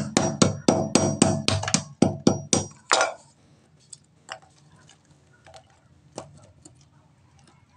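A hammer knocking quickly on a piece of clay tile set in concrete, about five blows a second, each with a short metallic ring, breaking the tile into fragments. The blows stop about three seconds in, leaving a few faint clicks as the tile pieces are pressed into place by hand.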